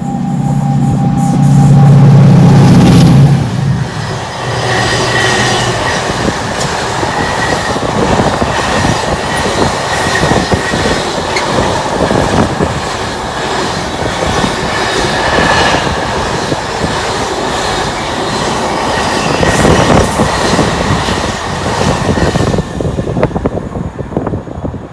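Class 68 diesel-electric locomotive passing at the head of a freight train, its engine loud for the first few seconds. The wagons then roll past for most of the clip with a rattling clickety-clack of wheels over the rail joints and a thin, steady wheel squeal, fading away near the end.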